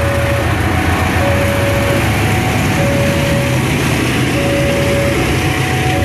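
Train headed by a KAI CC 206 diesel-electric locomotive rolling past, a steady low rumble of engine and wheels. Over it a level-crossing warning alarm sounds, alternating evenly between a lower and a higher note.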